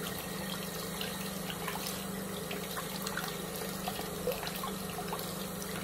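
Tap water running steadily from a faucet into a sink and splashing over a hand and the small copper-plated piece it is rinsing, with small drip ticks and a steady low hum underneath.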